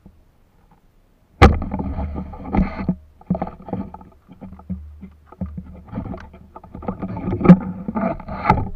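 Shallow tidal water splashing and sloshing in uneven bursts, starting suddenly about a second and a half in, with a few sharp knocks, as someone wades through it after crabs.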